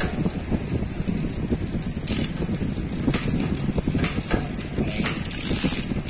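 Mountain bike drivetrain running on a work stand: the chain turning over a new Shimano Deore M4100 11–42 ten-speed cassette, with several sharp clicks as the rear derailleur shifts the chain across the sprockets.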